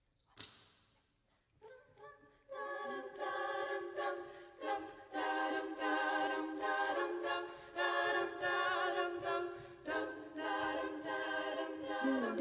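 A cappella vocal group singing a wordless introduction: sustained chords of many voices that swell and ease back every second or two. It starts about two seconds in, after a short noise and a few quiet notes.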